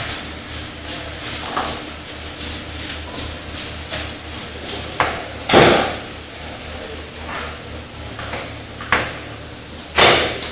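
Knives chopping and knocking on cutting boards as fish is cut up by hand, in irregular strokes with a few louder knocks around the middle and near the end. A steady low hum runs underneath.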